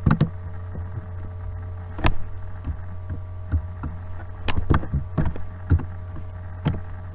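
Steady low electrical hum picked up by the microphone, with about eight short, irregular clicks from a computer mouse being used.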